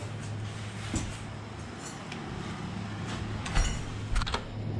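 A door being handled, with a few knocks and clicks, the loudest about three and a half seconds in, over the steady low hum of running mechanical-room equipment.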